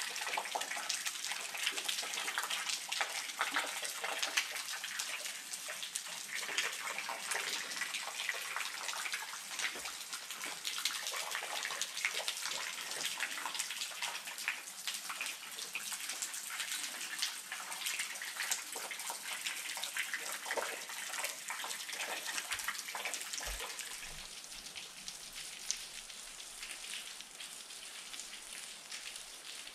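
Water dripping and splashing off a sandstone rock-shelter overhang: a dense, steady patter of drops like rain, easing off a little near the end.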